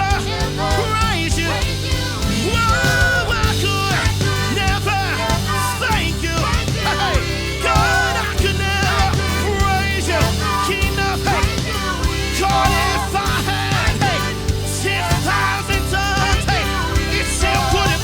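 Live worship band playing an upbeat, driving instrumental section at full volume: drums and bass underneath a lead melody line that bends and wavers.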